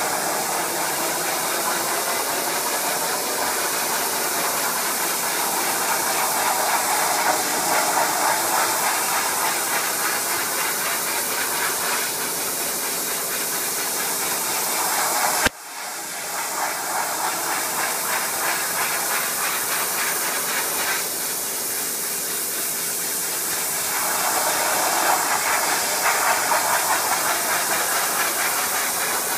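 Pressure washer running, its jet hissing steadily against a wooden lattice fence over the machine's hum, washing down the weathered wood before refinishing. The hiss swells and eases as the wand moves, and cuts out for a moment about halfway before coming back.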